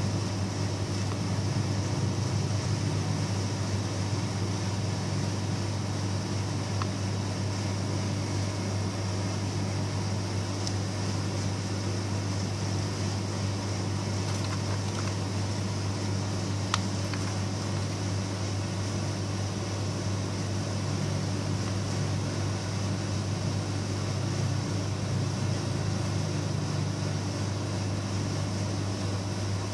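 Steady low electrical or machine hum with an even hiss over it, unchanging throughout, with one faint click about seventeen seconds in.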